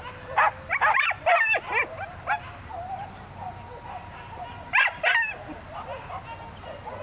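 Hunting dogs barking and yelping in short bursts: a run of calls in the first couple of seconds and another brief cluster about five seconds in.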